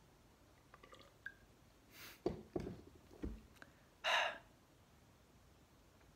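A person drinking from a glass bottle: faint mouth and swallowing ticks, a few short soft knocks two to three seconds in, and a breathy exhale about four seconds in, the loudest sound.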